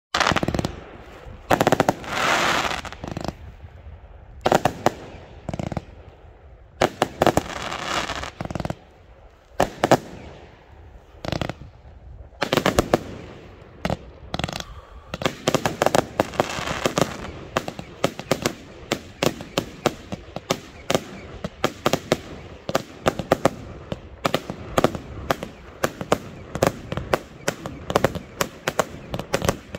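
Professional fireworks display: aerial shells and batteries going off in loud, irregular bursts, some with a hissing trail after the report. About halfway through the bursts turn into a dense, rapid stream of reports.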